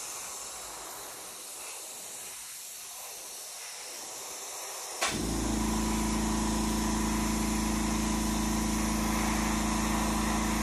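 Airbrush hissing as thinned acrylic paint is sprayed. About halfway there is a click, then the airbrush's air compressor starts and runs with a steady hum.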